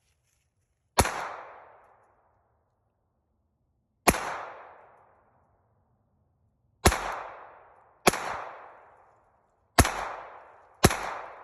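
Glock 44 .22 LR pistol firing six single shots at an uneven pace: two about three seconds apart, then four more quicker, the last ones about a second apart. Each report dies away over about a second.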